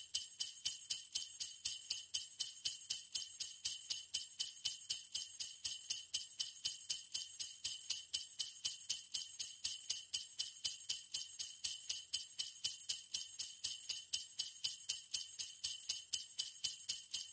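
Jingle bells shaken in a steady rhythm, about three to four shakes a second, bright and high with no other instrument.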